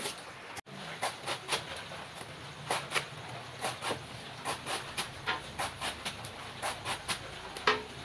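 Knife slicing through a green banana tree trunk, repeated crisp cuts about two or three a second as the stem is chopped into thin rounds for animal feed.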